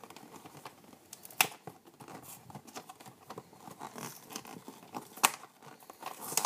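Action-figure packaging being handled and torn open: scattered crinkling and tearing with small clicks, and two sharper snaps, one about a second and a half in and one about five seconds in.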